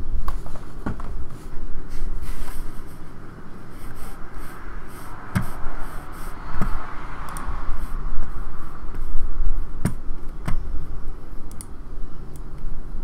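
Handling noise: rubbing and scraping over a low rumble, with a few sharp clicks, one about five seconds in and two close together near ten seconds.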